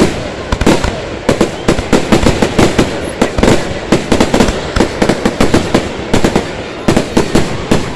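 Fireworks going off in a rapid barrage: many sharp bangs and crackling reports a second, overlapping one another.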